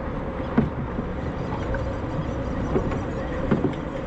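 Steady rumble of wind and choppy water around a small open boat, with a few dull knocks.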